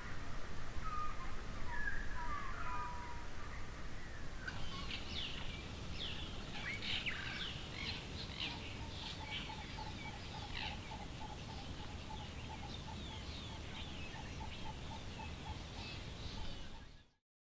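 Birds calling over a low steady rumble: many quick falling chirps and a regular run of repeated notes, several a second. The sound stops suddenly near the end.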